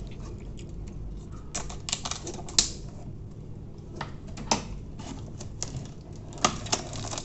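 Hands opening and handling a small product box: irregular sharp clicks and taps with light rustling.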